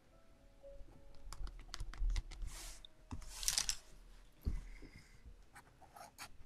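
Paintbrush and painting tools working on paper and palette: light clicks and taps, with two brief scratchy swishes about two and a half and three and a half seconds in and a sharper knock a second later.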